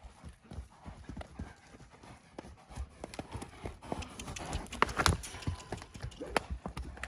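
Horse's hoofbeats, a run of irregular strikes on the ground that grow louder about halfway through as the horse moves around.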